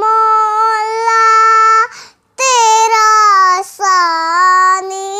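A young girl singing a naat unaccompanied, drawing out long held vowels in three stretches with short breaks between them.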